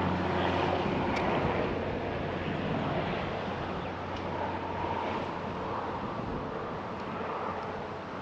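Strong wind buffeting the microphone, a steady rushing noise that eases a little toward the end.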